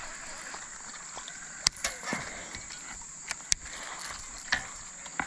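Insects buzzing in a steady high drone, with a few scattered sharp clicks and knocks.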